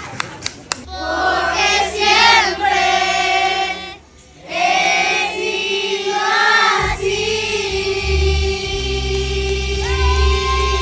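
A group of children singing together in unison, a song from their stage show, after a few rhythmic claps in the first second. A backing track with a heavy bass comes in under the voices about seven seconds in.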